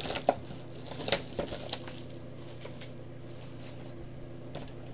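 Light clicks and rustles of a trading-card box being opened and handled by hand, a few in the first couple of seconds and again near the end, over a faint steady low hum.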